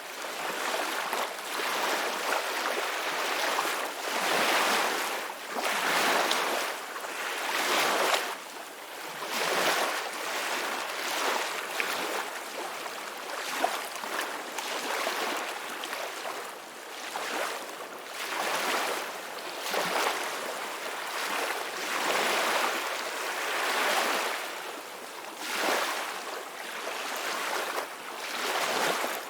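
Ocean waves washing onto a shore, a steady hiss of surf that swells and fades every second or two.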